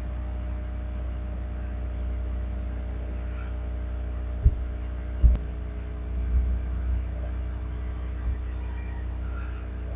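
Steady low electrical hum in the recording, with two dull thumps about four and a half and five and a half seconds in.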